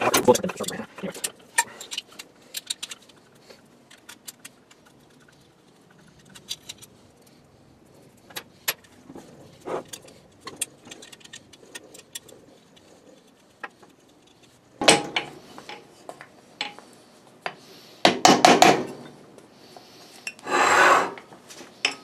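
Metal clinks, taps and scrapes from the steel housing and parts of an electric motor being handled and worked apart on a workbench. They come thick in the first few seconds, then sparse, with several louder scraping knocks in the last several seconds as a part is worked loose.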